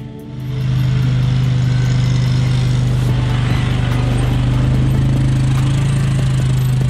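ATV engine running at a steady low speed in low gear while towing a cultipacker over tilled dirt; an even, unchanging drone after a brief dip right at the start.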